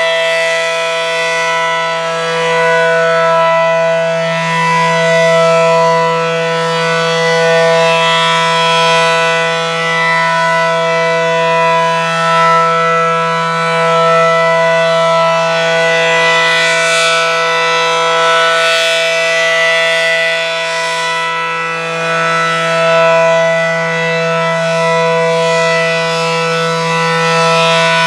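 ACA Allertor outdoor warning siren sounding its steady alert signal: one continuous low-pitched tone, rich in overtones. It swells and fades every few seconds as the rotating siren sweeps past.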